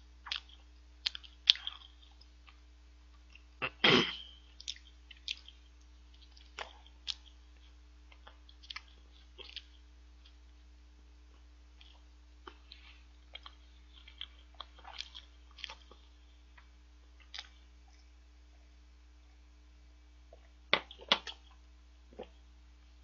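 Close-up mouth sounds of a person chewing a soft choux cream bun: scattered short wet clicks and smacks, with a louder one about four seconds in and a small cluster near the end. A faint steady electrical hum runs underneath.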